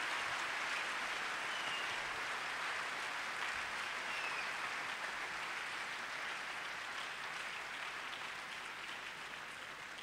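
Audience applauding, the clapping slowly dying away.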